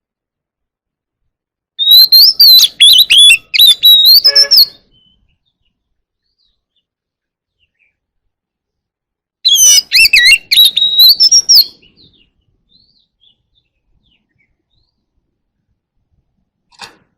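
Oriental magpie-robin singing two loud phrases of varied, rapidly gliding whistles, the first about two seconds in and the second about halfway through, with silence between them. The first phrase ends in a brief harsh note.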